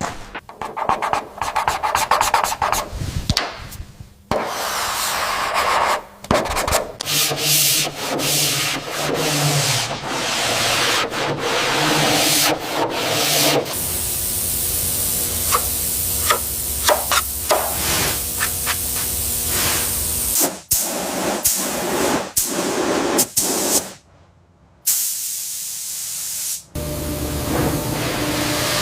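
Sanding and rubbing sounds from bodywork restoration, heard in several short clips that change abruptly one after another.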